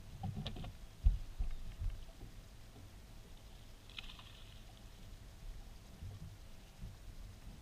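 Low thumps and knocks of people moving on a bass boat's deck, the sharpest about a second in, then a brief splash about four seconds in as a hooked bass thrashes at the surface beside the boat.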